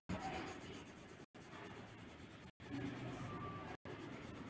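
Quiet scratching of a marker on paper, as in colouring a drawing. The sound is cut by brief dropouts to silence about every second and a quarter.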